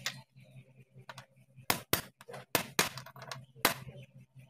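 Small metal water-pump parts clicking and clinking against each other and the tile floor as they are handled, about six sharp taps spread through, over a steady low hum.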